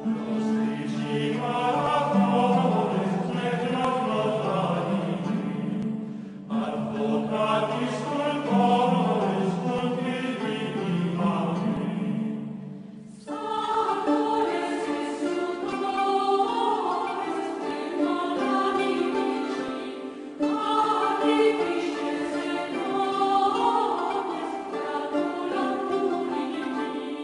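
Background choral music: a choir singing slow, sustained phrases, each broken by a short pause about every seven seconds.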